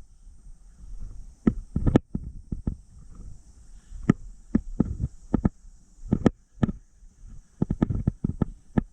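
An irregular series of sharp knocks and thumps, some coming in quick clusters, over a steady high hiss.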